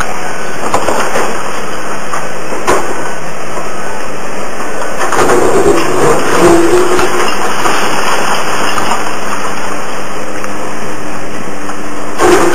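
Hydraulic excavator's diesel engine working under load as its bucket tears into a fire-gutted building, with a few sharp crashes of breaking and falling debris.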